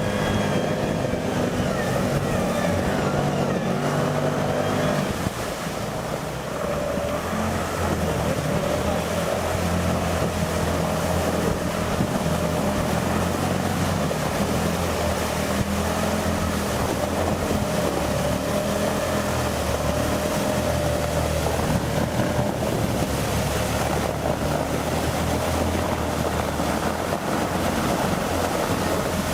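Bulldozer's diesel engine running steadily while it works through water, with splashing and wind noise on the microphone. The engine sound changes about five seconds in.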